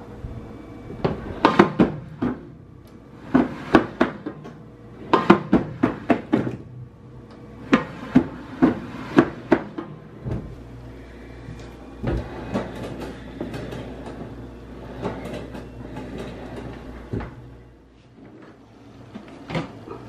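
Washing machine pedestal drawer being worked, with quick clicks and knocks coming in clusters every second or two for the first half, then fewer and further apart. This is the clicking from the pedestal drawer that the owner is trying to diagnose.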